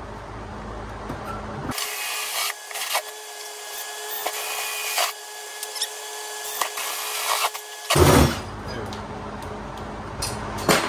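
Cordless drill spinning a 2 1/8-inch hole saw to cut round corner holes in an aluminum jon boat deck: a steady motor whine for about six seconds, then a short loud burst about eight seconds in.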